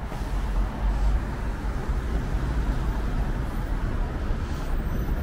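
Steady city road traffic: a continuous low rumble of passing cars and other vehicles on a busy street.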